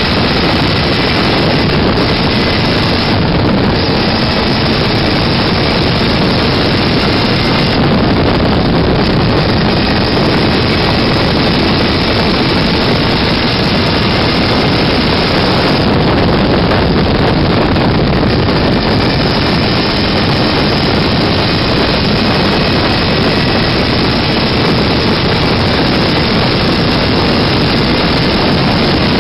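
Open road buggy running at steady cruising speed, its engine heard through a loud, even rush of wind on the microphone.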